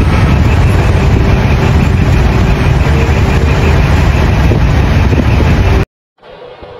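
Loud, steady road and engine noise of a vehicle running at expressway speed, heavy in low rumble. It cuts off abruptly about six seconds in, leaving a much quieter hum with a faint steady tone.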